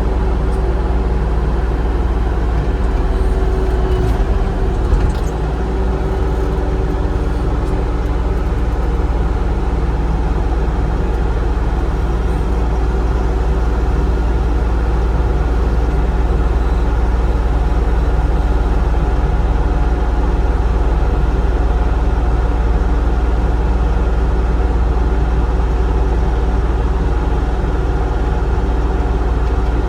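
Bobcat E35 R2 mini excavator's diesel engine running steadily, with a brief change in its sound about four to five seconds in.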